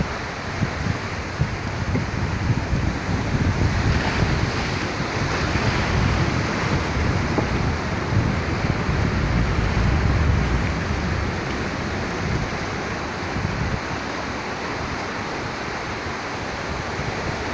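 Surf washing onto the shore, with wind buffeting the microphone in a steady low rumble.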